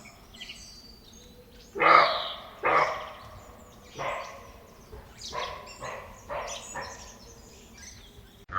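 A dog barking: two loud barks about two seconds in, another a little before the midpoint, then a run of quieter barks.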